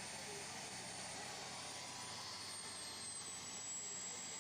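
Small jet turbine on a Solex moped running at full power: a steady jet rush with a high-pitched whistle, which drops slightly in pitch about three seconds in.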